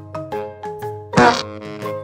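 Upbeat children's song music with short, bright notes repeating several times a second, and a louder percussive hit a little over a second in.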